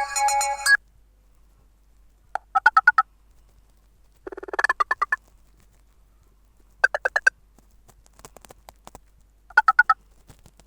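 Fly FS458 Stratus 7 phone loudspeaker playing a ringtone: a melody cuts off under a second in, then four short bursts of rapid chirping pulses follow, about every two to three seconds, like an animal-call tone.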